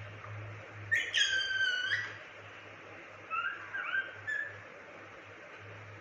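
Indian ringneck parrot giving a loud whistled call about a second in, held for about a second and ending in a quick upward flick, then a few shorter, softer chirps a little later.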